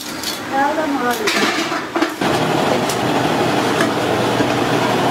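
A few light metal clinks from an aluminium pressure cooker lid being handled, then from about two seconds in the steady running of a vertical drilling machine, with a few faint clicks.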